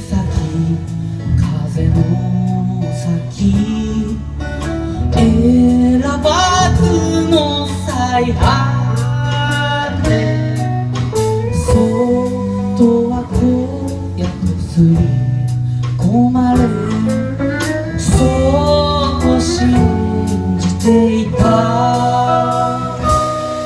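Live band music: acoustic guitar and drums with a lead melody riding on top, playing steadily.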